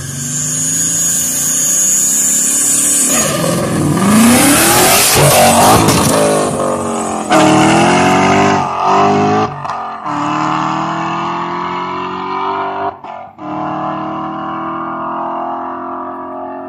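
Ford Mustang V8 launching hard on a test hit. It holds a steady rumble at the line, then about three seconds in the revs climb sharply, with several upshifts as it pulls away, and the exhaust fades as the car goes into the distance.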